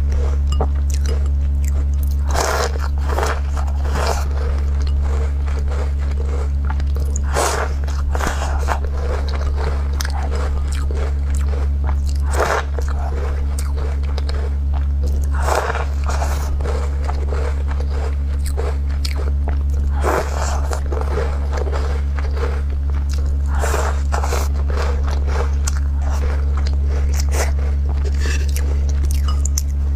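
Close-miked biting and chewing of crumbly walnut crisp cookies: a sharp crunch every few seconds, with softer chewing between, over a steady low hum.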